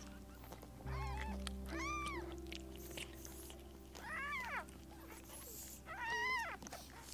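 Cat meowing four times, short high meows that rise and then fall in pitch, over background music.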